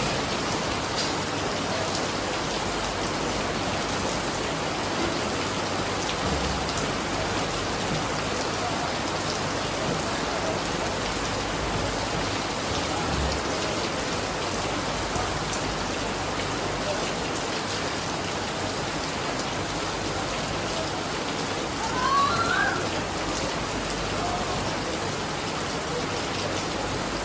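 Steady rain falling, an even hiss of drops with no let-up. About two-thirds of the way through comes a brief high, wavering sound.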